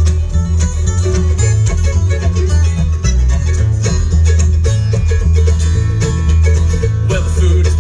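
Live bluegrass band playing an instrumental break: upright bass walking under a steady beat, with strummed acoustic guitar, mandolin and a resonator guitar played lap-style.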